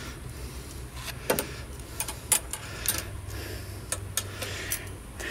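Stiff steel wire being worked with pliers: a scattered series of about seven sharp metallic clicks and snaps over a few seconds.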